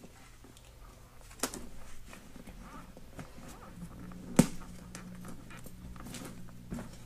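Quiet handling of an HJC RPHA 70 ST motorcycle helmet: light rustling and small ticks, with two sharp clicks, the louder one about four seconds in.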